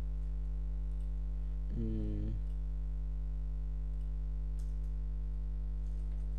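Steady low electrical mains hum picked up on the microphone, with a brief murmured vocal sound about two seconds in and a few faint computer keyboard or mouse clicks.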